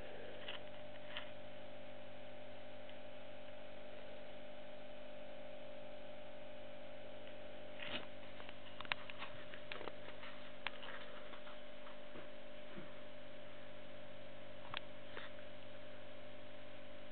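Steady electrical hum, with a few faint clicks scattered through the middle.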